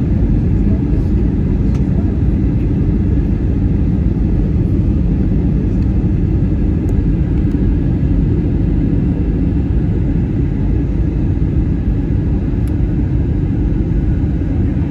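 Steady low rumble of an airliner in flight, heard from inside the passenger cabin: engine and airflow noise.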